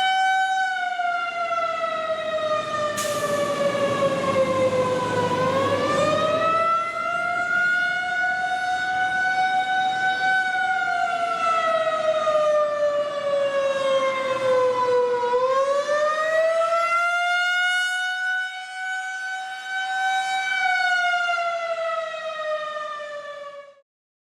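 Outdoor tornado warning siren sounding one steady tone with many overtones. Its pitch sags and climbs back twice, about ten seconds apart, and it cuts off suddenly near the end.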